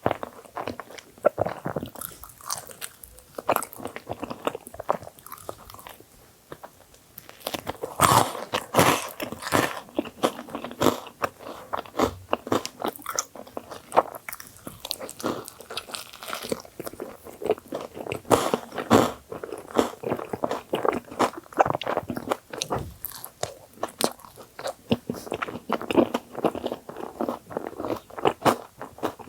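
Close-miked eating of a thick filled sandwich bagel: a dense run of bites and wet chewing clicks, louder in spells a third of the way in and again just past halfway.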